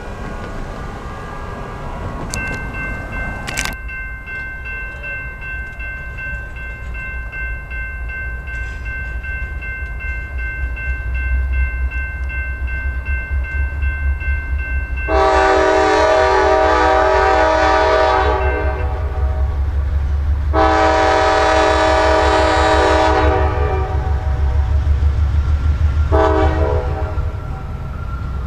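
Norfolk Southern diesel locomotive's multi-chime air horn sounding two long blasts and then a short one, the opening of the grade-crossing signal, over the low rumble of the approaching locomotives' diesel engines. A fainter steady horn chord sounds before the loud blasts.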